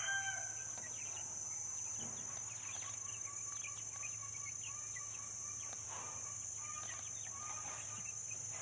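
Village chickens: a rooster's crow trails off right at the start, then scattered faint chirps and clucks over a steady high-pitched hiss.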